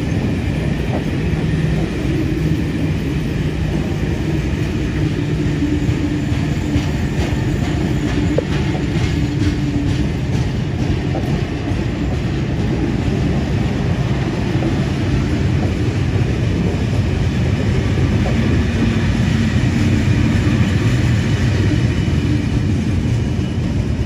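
Heritage passenger carriages rolling past on the rails with a steady rumble of wheels and running gear, and a run of clicks from the wheels somewhere in the middle.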